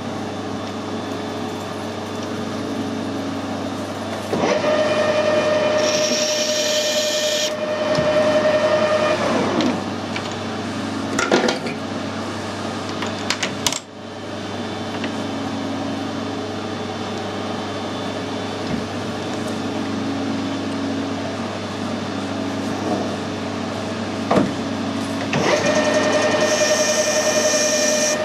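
Metal lathe running with a steady motor hum while cutting a bearing housing. The cut adds a steady whine and hiss, once about four seconds in and again near the end. A few sharp knocks come around the middle.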